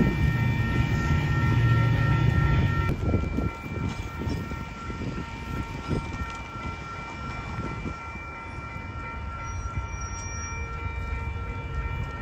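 Metra commuter train with a diesel locomotive moving through the station: loud locomotive rumble with steady high-pitched tones for about the first three seconds, then quieter, with the passing cars' wheels clacking on the rails.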